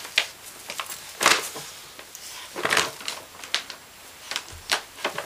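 A bag of dry dog food crinkling and rustling in irregular bursts as a small Maltese dog roots around inside it with its head.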